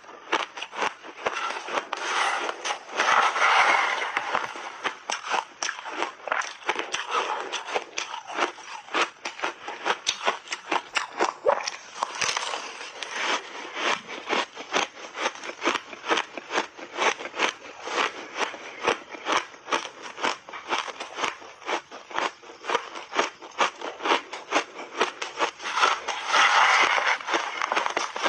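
Refrozen shaved ice being bitten and chewed in big bites: a dense, continuous run of crackling crunches, with louder bursts a few seconds in and again near the end.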